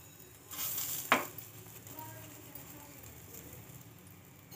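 Oil sizzling on a hot tawa as it is spread with a spoon over a paratha: a louder burst of sizzle about half a second in, ending in a sharp click just after a second, then a faint steady sizzle.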